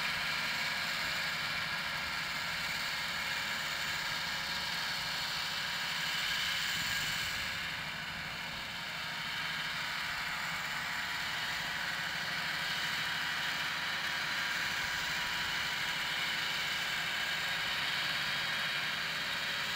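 New Holland 8360 tractor running steadily as it pulls a Joskin slurry tanker spreading slurry, under a steady hiss.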